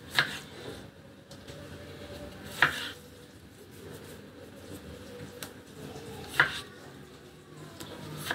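Kitchen knife slicing small tomatoes on a chopping board: three sharp knocks of the blade striking the board, a few seconds apart, with quiet handling in between.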